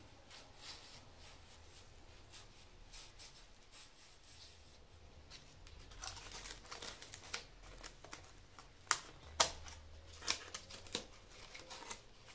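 Faint pencil scratching on corrugated cardboard, then from about halfway the cardboard sheet rustling and crackling as the knife-cut piece is pushed out of it, with several sharp snaps of the last connecting bits near the end.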